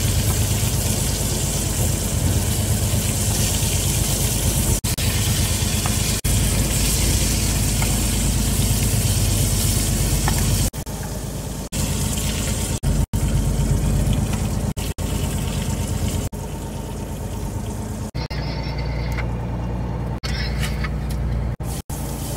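A fishing boat's engine running with a low steady drone under a loud water-like hiss, the sound changing abruptly at several cuts.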